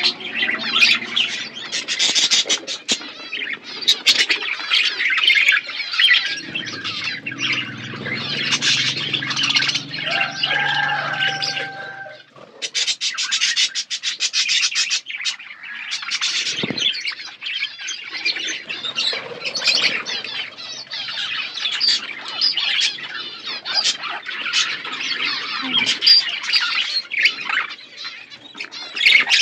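A flock of budgerigars chattering and squawking without a break, a dense warbling babble of many birds at once. A deeper, steadier sound runs underneath for a few seconds near the middle.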